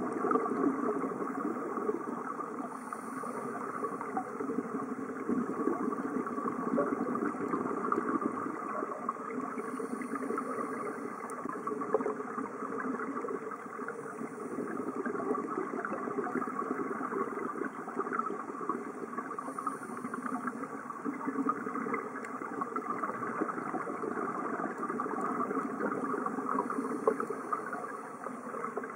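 Underwater ambient noise picked up by a dive camera: a steady rushing hum, with a faint hiss swelling up four times, several seconds apart.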